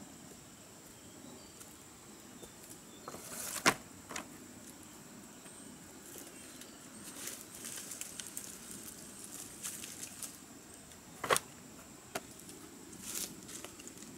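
Bark slabs and pieces of wood being handled and set down with sharp knocks, the loudest a few seconds in and again late on, with rustling of dry leaf litter between. A faint steady high whine lies beneath.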